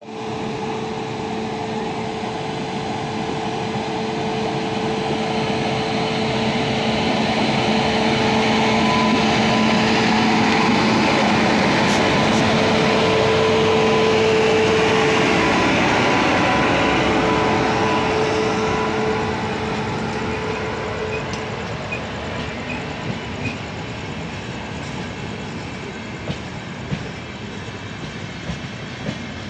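A WAP-7 electric locomotive runs through at speed with a steady hum, loudest as it passes about halfway through, then a long rake of passenger coaches rolls by. Wheels click over the rail joints a few times near the end.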